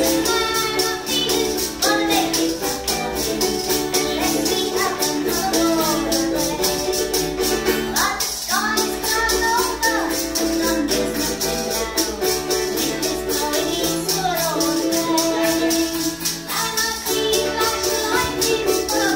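A woman singing a folk song over a strummed charango, with a hand rattle shaken in a steady rhythm throughout.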